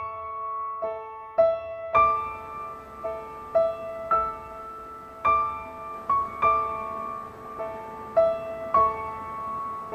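Background piano music: a slow, gentle melody of single notes, each struck and left to ring, about one or two a second.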